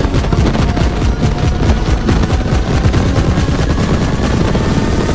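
Helicopter rotor noise and heavy wind buffeting on a phone's microphone through the open doorway of a doorless helicopter in flight: a loud, dense, irregular rattle of thuds.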